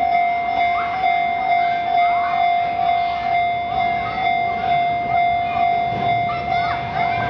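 Railway level crossing warning bell ringing in a steady, even repeated pattern. Near the end the low rumble of an approaching train builds up.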